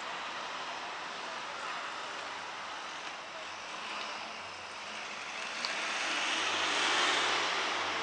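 Steady rushing outdoor noise, swelling louder near the end, with one faint click a little past halfway.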